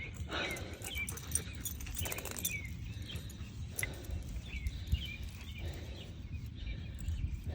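A dog making soft sounds several times over a steady low rumble, with short high chirps scattered through.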